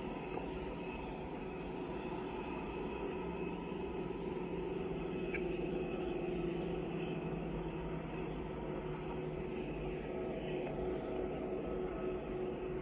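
Steady engine drone with a faint hum.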